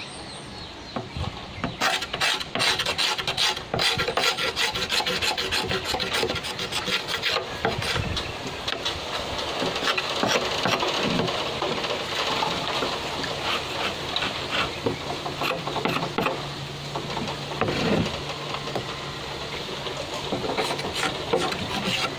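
Sharp knife blade scraping the green skin off a freshly cut bamboo culm in quick, repeated strokes, with a brief pause near the start.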